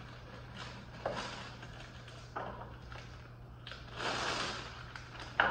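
A plastic fish bag being handled in a bucket of water: rustling, knocks and water splashing, with a longer stretch of noise about four seconds in as a water-filled bag is lifted out. A steady low hum runs underneath.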